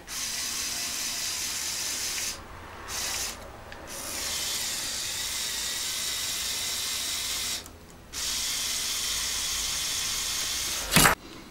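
Small electric motor and plastic gears of a Lego Technic turntable whirring as they swing a long boom carrying an 840-gram weight, stopping and restarting three times with short pauses. Near the end comes a single loud knock as the overloaded boom gives way.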